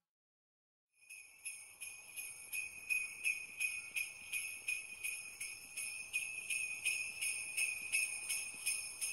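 Jingle bells shaken in a steady rhythm, about three shakes a second, starting about a second in.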